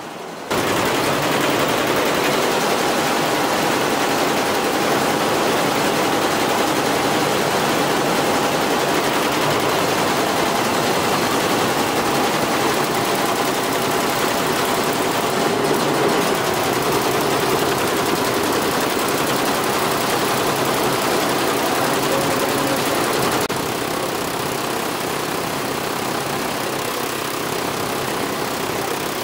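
Multi-head computerized embroidery machine running, its needles stitching at speed with a dense, steady, rapid clatter. The sound starts abruptly about half a second in and drops slightly in level near the end.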